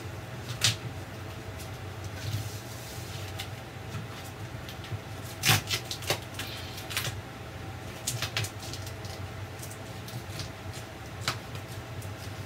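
Scattered light knocks and taps, the loudest about halfway through, as hands press a self-adhesive foam brick-look wall panel into place against the wall, with a steady low hum underneath.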